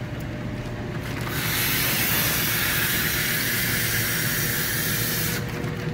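Compressed oxygen hissing out of a hose into a plastic fish-shipping bag, filling the bag with oxygen before it is sealed. The hiss starts about a second and a half in, holds steady, and cuts off suddenly shortly before the end.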